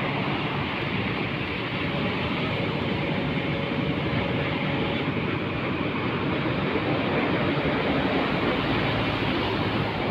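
Kobelco SK350 hydraulic excavator running steadily under load as it handles a heavy concrete drain section. A faint thin whine sits over the engine noise from about two to five seconds in.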